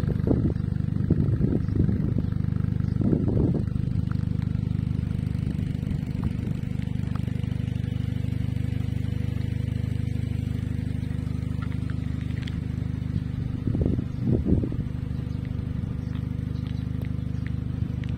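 An engine running steadily at idle, a low even hum, with a few brief low bumps over it near the start and about two-thirds of the way through.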